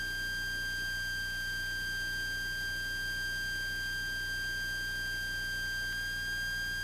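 A steady, unchanging high-pitched electronic tone with overtones above it and a faint low hum beneath, coming through the aircraft's headset or intercom audio feed. No engine or propeller sound comes through. It is the kind of interference tone that fills a recorded intercom line when nobody is talking.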